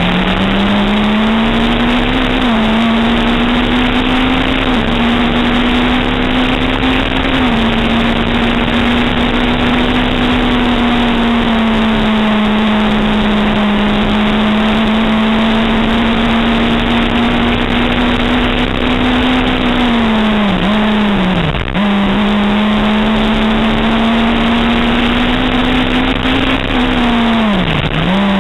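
Engine of a Berta VW historic Formula 3 car at near-steady high revs, heard from on board the car. Its pitch steps down slightly a few times early on, then dips sharply and picks up again three times in the second half.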